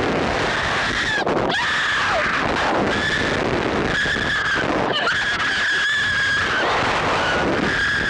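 Two boys screaming on a reverse-bungee slingshot ride: a string of high, held screams, one long one about the middle, over a heavy rush of wind on the ride-mounted microphone.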